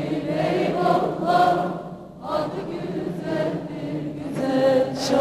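Large mass choir singing an Alevi deyiş in drawn-out phrases, with a short break about two seconds in.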